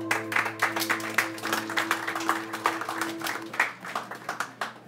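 Audience applauding, the clapping thinning out near the end. Underneath, the soundtrack music holds a chord that ends about three and a half seconds in.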